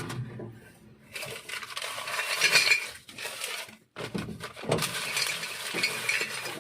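Hard objects clattering and rattling in two stretches, with a short break about four seconds in. Just before it a vehicle engine's low hum dies away.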